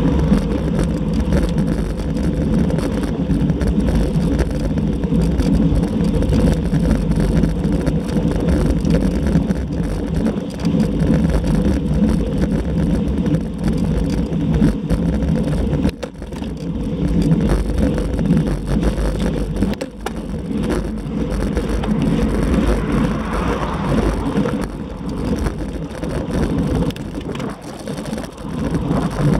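Steady wind noise buffeting a bicycle-mounted camera's microphone while the bike is ridden along a road, with tyre and road noise underneath.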